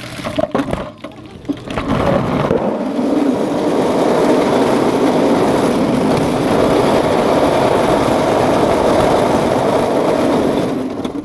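Quarter midget race car's small single-cylinder Briggs & Stratton Animal engine running hard, heard on the in-car camera with wind and chassis noise. It comes and goes unevenly for the first couple of seconds, then runs at a steady, loud pitch until near the end, where it drops off.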